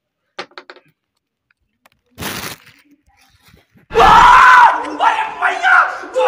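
A short, sharp burst of noise about two seconds in, then a group of men shouting and screaming loudly together from about four seconds in.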